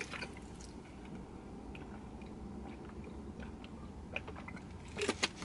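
A man drinking from a plastic bottle: faint swallowing and mouth clicks, with a few louder clicks near the end.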